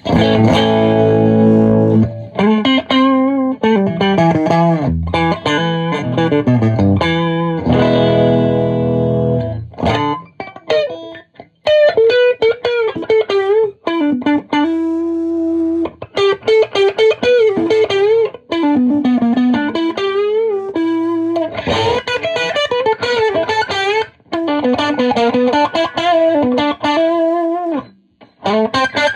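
Gibson Les Paul R8 played through a Marshall 2203 valve amp head with every control at noon, distorted and loud. About the first ten seconds are chords; after that come single-note lead lines with bends and vibrato, with short gaps between phrases.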